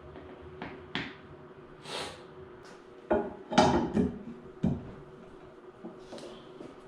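Scattered knocks and clatter of lawn-roller assembly parts and hardware being handled, with a brief brushing sound about two seconds in and the loudest few knocks just past the middle.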